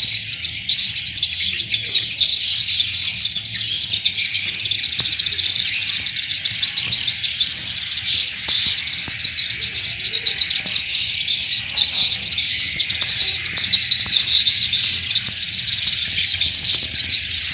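Edible-nest swiftlets twittering: a dense, continuous chorus of rapid high chirps and trills from many calls at once.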